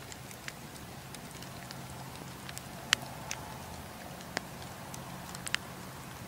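Wood campfire burning: a steady low hiss with scattered sharp crackles and pops from the logs. The loudest pop comes about three seconds in.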